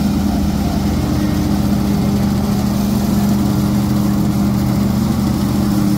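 Tractor engine and the tractor-driven straw reaper running steadily together as the reaper cuts straw and blows it into a trailer: a loud, even, humming drone that does not change.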